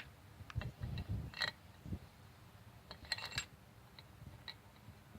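Light metal clinks and ticks of steel cylinder head bolts being handled and oiled before going into the head, with a short ringing clink about a second and a half in and a quick cluster of clinks around three seconds in, over soft handling knocks.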